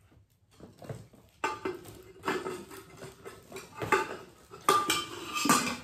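A stainless steel pot and its metal lid clinking and clanking as they are handled, starting about a second and a half in, with several sharp knocks and one briefly ringing clink near the end.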